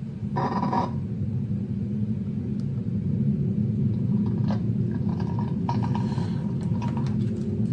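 Low rumbling drone of a horror narration video's intro, steady throughout. A short noisy hit comes about half a second in, and faint glitchy crackles follow in the second half.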